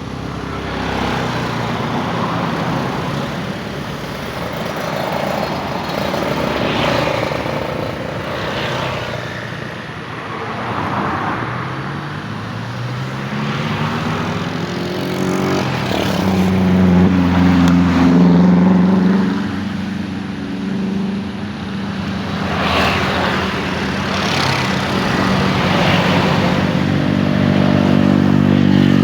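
Engine vehicles passing one after another, each swelling and fading, with a steadier low engine hum building through the second half.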